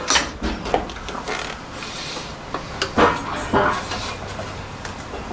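Metal hand tools and mower parts clinking and knocking as they are handled, a few separate sharp knocks with the loudest about three seconds in.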